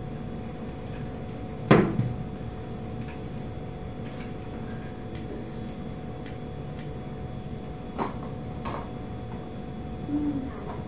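Kitchen wall cupboard being handled: a loud knock about two seconds in, scattered light clicks, then two sharper knocks about eight seconds in, over a steady hum.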